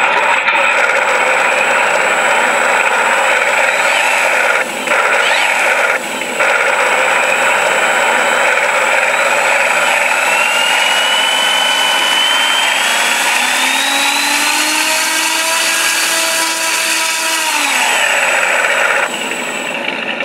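Simulated B-25 twin radial engine sound from an RC model's ShockWave sound module, playing loud through the two speakers in the nacelles. It runs steadily with two brief dips, then climbs in pitch with a rising whine as the throttle is advanced, and winds back down near the end.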